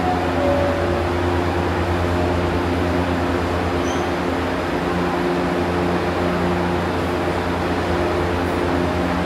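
Steady low mechanical hum on a metro platform, with several steady low tones and no change in level throughout.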